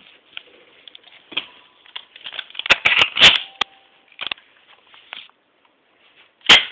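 Irregular clicks, knocks and rustling of objects being handled close to the microphone. A loud cluster of knocks comes about three seconds in, and a single loud knock comes near the end.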